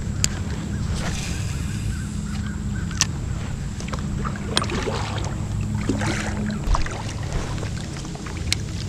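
Kayak paddling: paddle strokes swishing and splashing through river water, with a few sharp knocks, over a steady low rumble.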